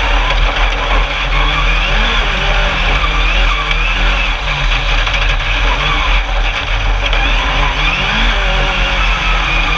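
Onboard an Alumicraft single-seat Class 10 off-road race buggy at speed on sand: the engine runs hard, its note rising and falling several times under a loud, steady rush of wind, tyre and chassis noise.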